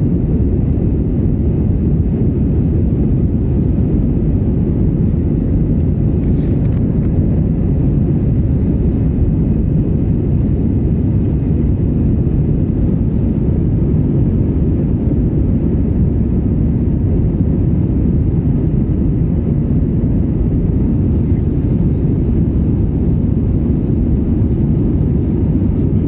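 Steady cabin noise of a jet airliner in flight: engine and airflow heard through the fuselage as an even, unchanging rush, heaviest in the low end.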